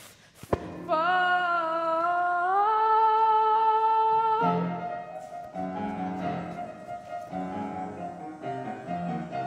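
A young performer sings one long held note in a musical-theatre number, stepping up in pitch partway through. The note breaks off just under halfway through, and the piano accompaniment goes on with repeated chords. A short knock comes just before the note.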